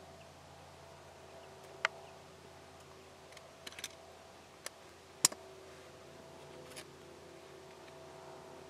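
A handful of sharp, separate clicks over a faint steady hum. There is one about two seconds in, a quick cluster of three near four seconds, and the loudest a little past five seconds.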